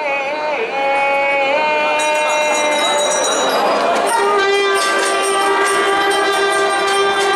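Temple bells ringing for the aarti at the flagstaff: a dense clangour of many ringing tones with a fast, even pulse that starts about two seconds in. A steady horn-like tone joins about four seconds in, and a singing voice fades out at the start.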